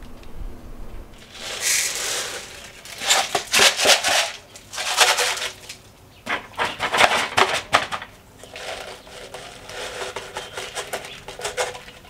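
Sorghum seeds poured from a cut plastic bottle into a plastic-bottle bird feeder: a dry rattling rush of grain on plastic. It comes in about five pours of a second or so each, with short pauses between.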